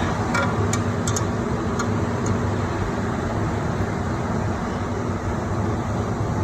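A steady low machine hum in the background, with a few light metallic clicks and clinks in the first couple of seconds from hand tools working on the TH400 transmission's bell housing bolts.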